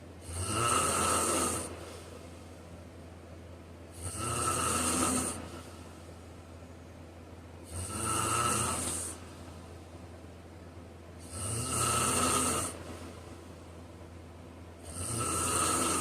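A sleeping person snoring with a regular rhythm: five snores, one about every three and a half to four seconds, each lasting about a second and a half.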